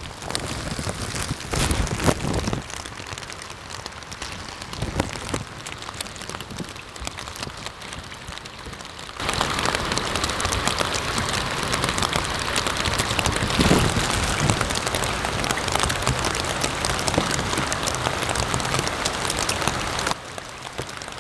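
Steady rain falling, an even hiss of drops. It grows louder about nine seconds in and eases again near the end.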